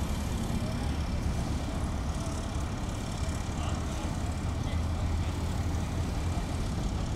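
Steady low rumble of an idling fire engine's diesel engine.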